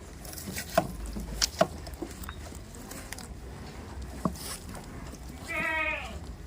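A goat bleats once near the end, a short wavering call. Before it come a few sharp clicks.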